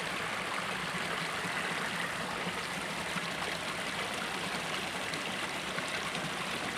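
Shallow rocky creek flowing over and between boulders: a steady rush of running water.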